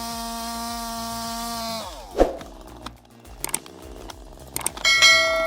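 A machine engine running at a steady high speed shuts off and winds down, its pitch falling, about two seconds in. A single heavy knock follows, then scattered clicks and knocks, and a ringing tone starts near the end.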